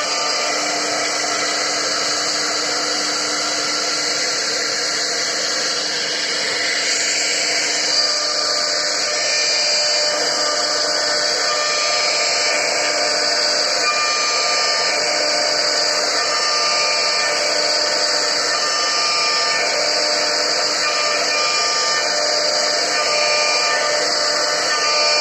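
CNC router spindle cutting into a wooden board, a steady high whine with the noise of the bit carving the wood.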